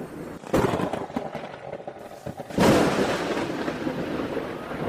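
Thunder: a sharp crack about half a second in, then a louder crash about two and a half seconds in that trails off into a rumbling hiss.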